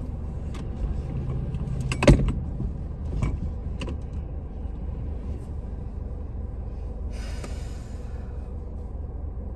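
Car engine running, heard as a steady low rumble inside the cabin, with scattered knocks and a sharp click about two seconds in as a dog moves about on the back seat. A brief rustling hiss comes near the end.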